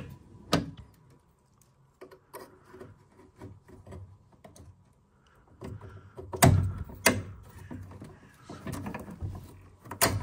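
Hands refitting a metal retaining clip on a pipe connection inside a Vaillant ecoTEC boiler: scattered clicks and light handling noise, two louder knocks about six and a half and seven seconds in, and a sharp click near the end.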